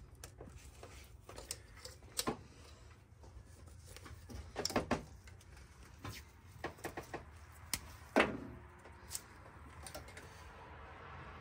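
Small clicks and taps of hands joining electric fan wires with connectors, with a few louder knocks about two, five and eight seconds in, over a low steady hum.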